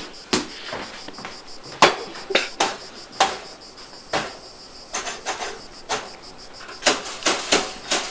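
Irregular sharp knocks and clatter of things being handled at a kitchen counter, a dozen or so with a cluster near the end, over a faint steady high-pitched whine.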